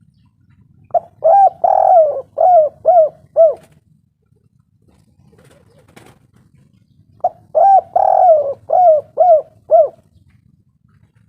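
Spotted dove (tekukur) cooing: two phrases of several quick coo notes each, a few seconds apart.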